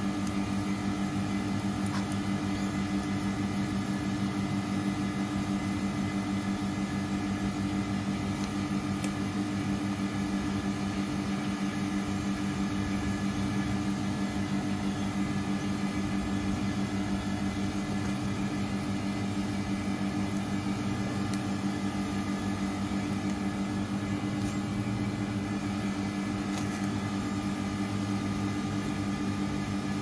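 About 30-year-old Carrier split-system outdoor condensing unit running in cooling: a steady hum from the compressor and condenser fan, with two strong low tones.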